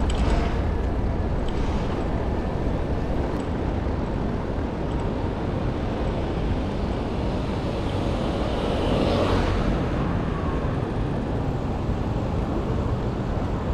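Riding noise from a bicycle rolling over paving stones: a steady low rumble of wind on the microphone and tyres on the pavers, with city street noise. A short swell of noise comes about nine seconds in.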